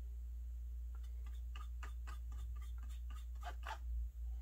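Faint, irregular scratchy strokes of a short, stiff-bristled brush working pastel chalk onto a 3D-printed model building, over a steady low hum.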